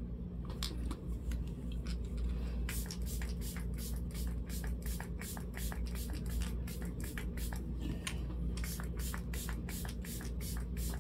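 Makeup setting spray pump bottle misting the face in a long run of quick short hisses, sparse at first and then several a second from about three seconds in. The spray is used to melt excess face powder into the skin.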